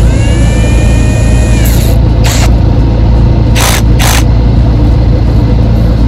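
Cordless drill driving a trailer stabilizer jack's crank: the motor whines up to speed, runs steadily for a little under two seconds, then stops. Three short noisy rasps follow a few seconds in. Under it all is a loud, steady low rumble.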